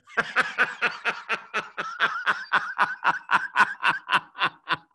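A man laughing in a long run of short, even "ha" pulses, about four a second, at one steady pitch.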